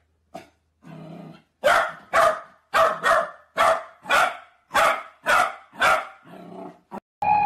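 A corgi barking at a run of sharp, evenly spaced barks, about ten in quick succession. They come after a single short bark and a low growl near the start.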